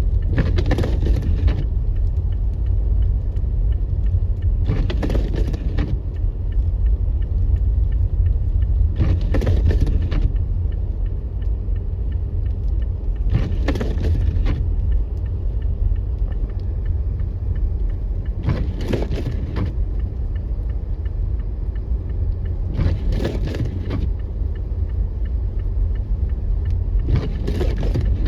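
Car cabin noise while driving: a steady low rumble of road and engine, with the windshield wipers swishing across the glass about every four and a half seconds.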